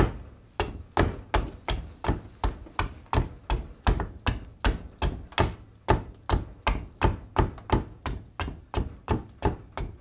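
Hand axe chopping into green black walnut on a wooden chopping block: a steady run of quick, sharp strokes, about two to three a second, trimming the edge of a ladle blank.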